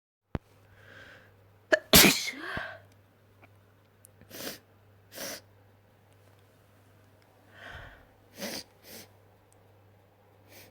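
A person's wet sneeze: a breath in, then one loud sharp sneeze about two seconds in. Shorter sniffs and breaths follow, with another breath in and two quick puffs near the end.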